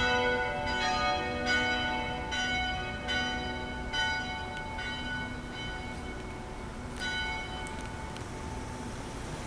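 St Philip's Church bells ringing, struck one after another about once a second. The strikes thin out and stop about seven seconds in, and the last tones are left to fade away.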